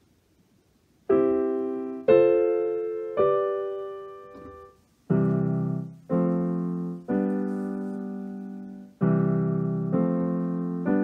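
Yamaha digital piano playing block chords, starting about a second in, about one a second, each struck and left to ring and fade. These are the three major chords of the 'three-chord trick'. After a short pause about halfway through, a deeper left-hand bass joins under the chords.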